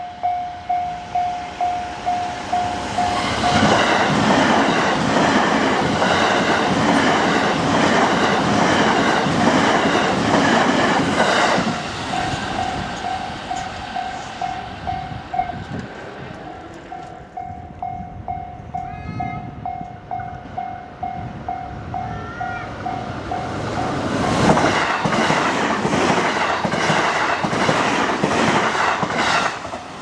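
Japanese railway level-crossing alarm ringing its repeated electronic ding, about two a second. Twice it is drowned out by a JR Hanwa Line train passing at speed with rhythmic wheel clatter over the rail joints: from about 3 to 12 seconds in, and again from about 24 seconds in.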